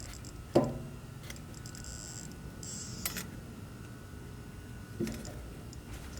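Hand tools knocking and clicking during work on a truck's fuel tank fittings: a sharp knock with a brief ring about half a second in, a light click midway, and a second knock near the end.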